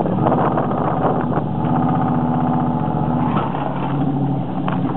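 Dodge 318 V8 engine pulling under throttle at a steady pitch, then easing off about three seconds in as the revs drop.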